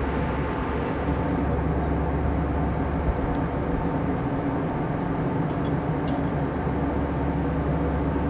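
Steady drone of a jet airliner's cabin in flight: engine hum and rushing air at a constant level, with a few steady low tones.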